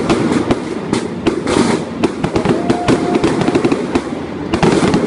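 Fireworks display going off in rapid succession: a dense, continuous barrage of bangs and crackling, many reports a second.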